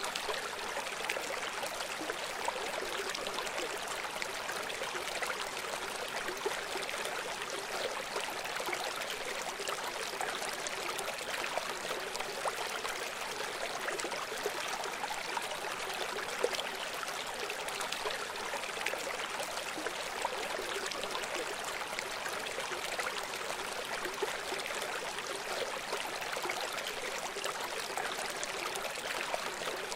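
River water flowing: a steady, even rush with fine splashing, light and hissy with little low rumble.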